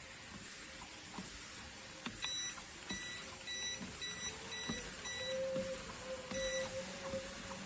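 Short electronic beeps from a walking-pad treadmill's controls, about eight in a row roughly half a second apart starting about two seconds in. Under them runs the treadmill's steady motor hum, which steps up slightly in pitch midway.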